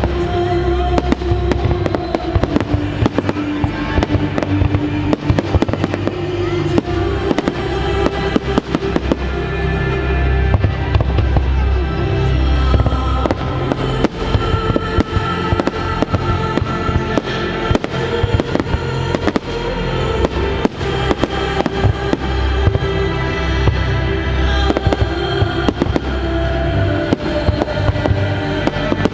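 Fireworks shells bursting in a rapid, near-continuous string of bangs and booms, several a second, over a musical soundtrack with held notes.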